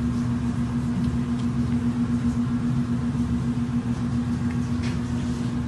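Steady mechanical hum with a constant low tone over a low rumble, with a few faint clicks.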